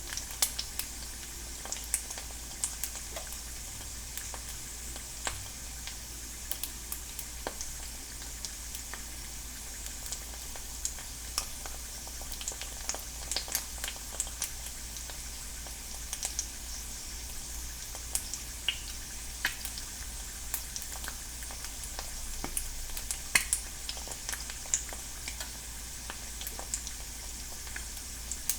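An egg frying in a non-stick pan: a steady sizzle with scattered sharp pops and crackles of spattering fat.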